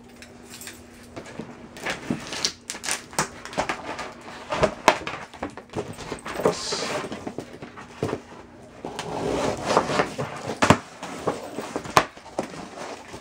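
Cardboard speaker shipping box being opened by hand: the packing tape along the seam is slit and scraped, then the flaps are pulled open, with many sharp clicks, rustles and knocks of cardboard.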